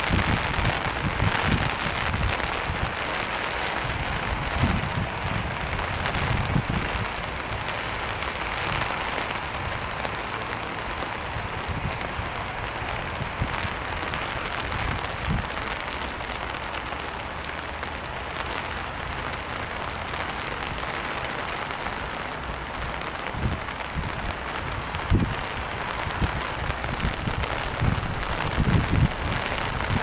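Steady hiss of rain, with gusts of wind buffeting the microphone in low rumbles near the start and again near the end.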